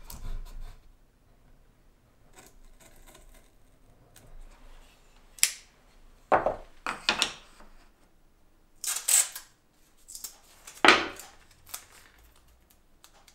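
Masking tape being pulled off the roll, torn and pressed onto wooden pieces: a series of short rips of varying length, the loudest near the end.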